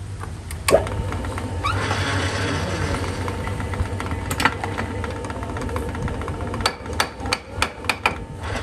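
Hammer tapping a steel hub clamped in a lathe chuck to seat it in the jaws: a single knock near the start, another a few seconds in, then a quick run of about six taps near the end. A steady low machine hum runs underneath.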